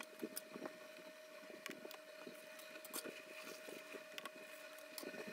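Faint room tone: a steady faint hum with scattered small ticks and clicks.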